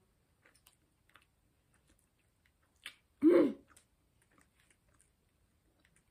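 Quiet chewing of a chocolate bar, with small wet mouth clicks scattered throughout. About three seconds in comes one short, loud vocal sound from the eater, a brief pitched hum that dips in pitch.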